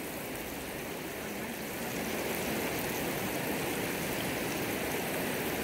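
A river flowing, an even rushing of water that gets slightly louder about two seconds in.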